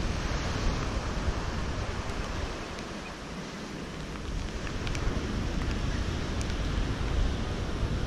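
Wind buffeting the microphone over the steady wash of ocean surf breaking on the shore. The wind eases for a moment about three seconds in.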